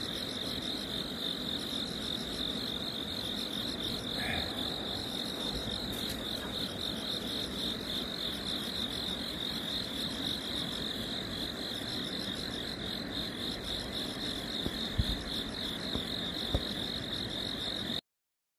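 Crickets chirping in a steady, fast-pulsing chorus, with a couple of faint knocks near the end; the sound cuts off suddenly just before the end.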